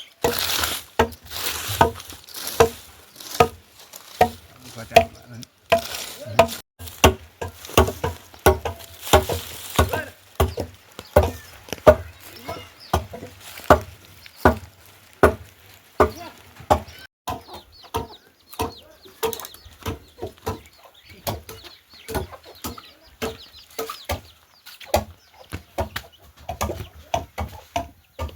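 A steady series of sharp knocks, roughly two a second.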